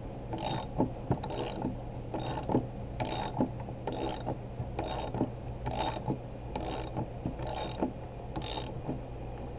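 Ratchet clicking in a steady rhythm, about two clicks a second, as it turns the screw of a sight pusher driving a pistol's rear sight across its dovetail under moderate pressure.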